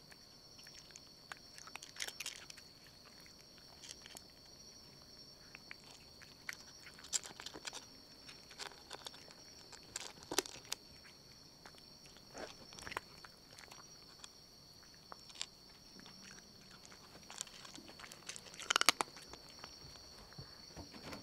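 Scattered soft clicks and crunches from cats, a few at a time with gaps between, the sharpest cluster near the end. A faint steady high-pitched whine runs underneath.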